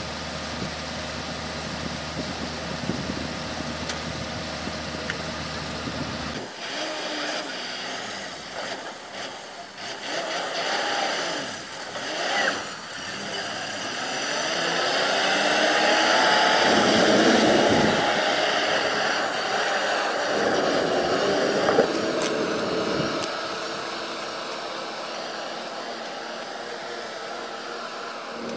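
Heavy diesel truck engine running steadily, then revving up and down and working hard as the truck, loaded with an excavator, drives off across a gravel riverbed. Voices are heard briefly in between.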